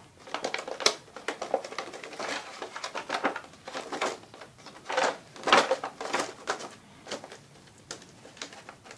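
Small plastic toy figures clicking against each other in a plastic tray while a clear plastic cover is handled and pressed down over them: an irregular run of clicks and taps, busiest about five seconds in.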